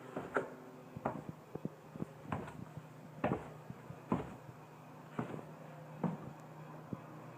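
Footsteps on a hard floor, about one step a second, over a faint steady hum.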